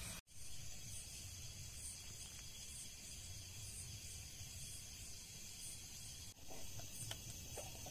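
Night insects, crickets, chirping about once a second over a steady high hiss, with a few faint snaps from a burning wood campfire near the end.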